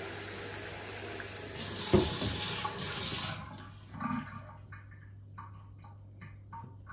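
Water running from a tap into a sink for about three and a half seconds, with one sharp knock about two seconds in; after it stops, a run of short knocks, a little over two a second.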